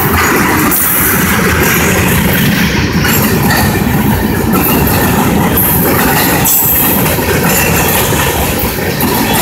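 A loaded freight train's cars rolling past close by, a loud, steady rumble and rattle of steel wheels on the rails.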